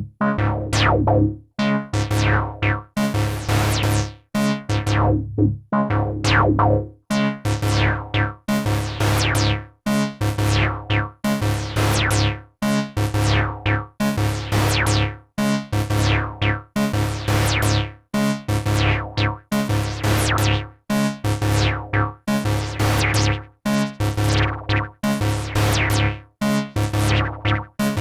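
IK Multimedia Uno Synth, a monophonic analog synthesizer, playing a sequenced pattern of short, separate bass notes. Each note starts bright and quickly dulls as its filter closes.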